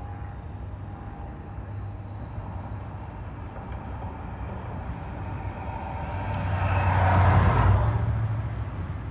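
A vehicle passing close by over a steady low engine hum: its rumble and hiss build, peak about seven seconds in, then fade.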